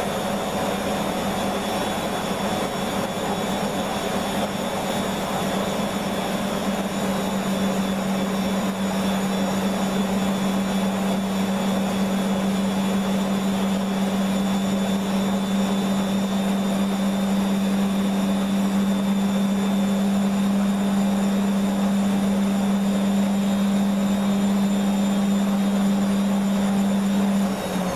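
Beko washing machine spinning at high speed, its motor and drum giving a steady whine, then starting to slow down right at the end. The load still holds a lot of suds.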